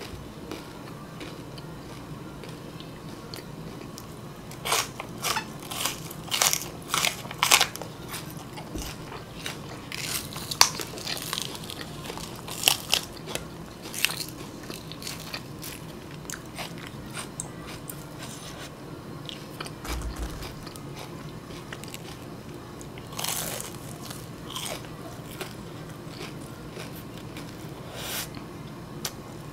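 A person crunching and chewing raw green onion and crisp fried chicken close to the microphone. A run of loud crunchy bites comes a few seconds in and another cluster around the middle, with single crunches later and quieter chewing between.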